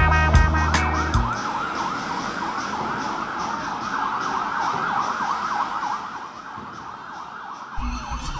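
Several sirens wailing over one another, their pitch sweeping up and down, overlapping and fading somewhat toward the end. A music track's beat cuts off about a second in.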